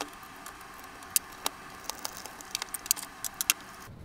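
Scattered light clicks and taps of a plastic Ryobi 18V battery pack being handled and turned over on a table, with the small knock of tools being picked up and set down, as the pack is worked at to get it open.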